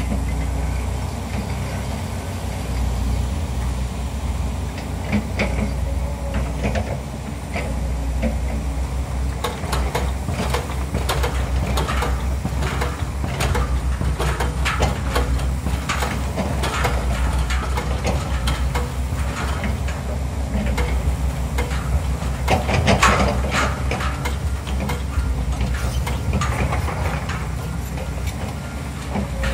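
Diesel engines of an excavator and a piling rig running steadily, with irregular knocks and clanks from about ten seconds in, the loudest a little past the middle.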